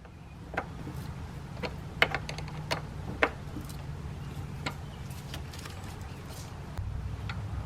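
Irregular light clicks and taps, a few a second, of metal tools and a new battery terminal clamp being fitted and tightened onto the negative post.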